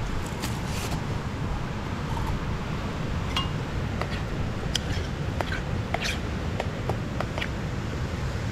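Metal spoon clinking and scraping against a metal camping cook pot as beans are stirred, a string of sharp clinks from about three seconds in, over a steady low rumble.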